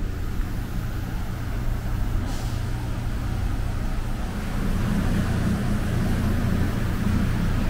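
Steady low mechanical drone of the ferry's engines running through the ship, growing a little louder about halfway through.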